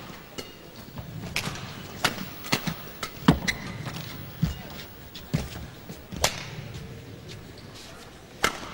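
Badminton rally: rackets striking a shuttlecock in a string of sharp cracks roughly a second apart, over a low steady background hum.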